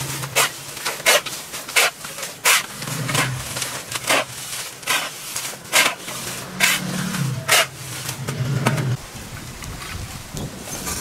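A series of about a dozen sharp knocks or snaps, irregularly spaced at roughly one or two a second, over a low hum that stops about nine seconds in.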